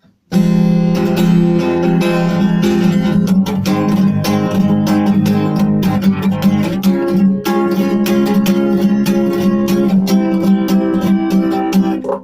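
Acoustic guitar strummed in a fast, even rhythm, playing a song's instrumental intro; it starts suddenly just after the beginning.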